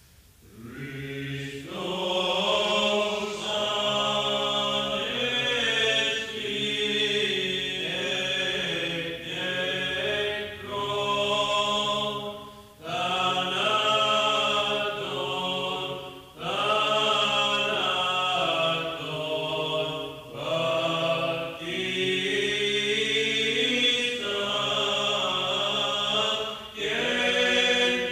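Male Orthodox chant: a sung hymn melody over a steady low drone note, in phrases with short breaks between them. The singing enters about a second in.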